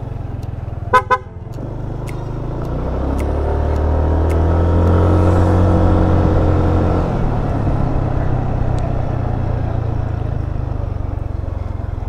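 Two quick horn toots about a second in, then the engine of a Yamaha NMAX scooter, a 155 cc single-cylinder, rising in pitch and volume as it pulls away and easing off a few seconds later, over steady low rumble from wind on a helmet-mounted microphone.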